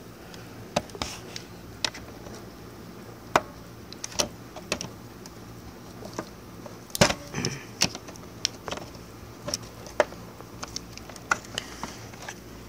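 Irregular clicks, taps and scrapes of a flat metal tool against the Dyson DC17's plastic cleaner head as it works at the slotted fasteners without a coin, with a short cluster of louder clicks about seven seconds in.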